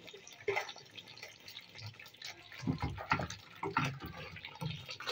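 A pot of matoke in a thick tomato-and-peanut sauce simmering on the stove, its sauce bubbling with short, irregular pops.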